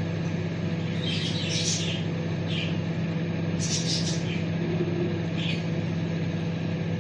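Teka microwave oven running with a steady electrical hum while heating a glass of milk. A few brief high chirps sound over it at intervals.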